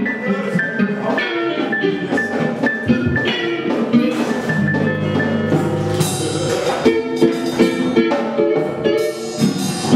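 Church band playing instrumental music: sustained chords with drum hits, and no singing.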